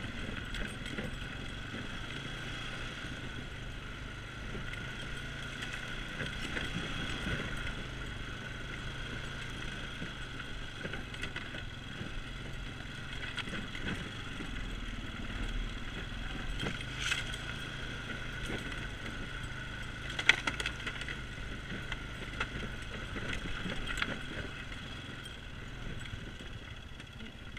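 ATV engine running steadily at low speed while the machine rolls over a cleared woodland trail, with sticks and brush cracking under the tyres. There are scattered sharp snaps, the loudest about two-thirds of the way in.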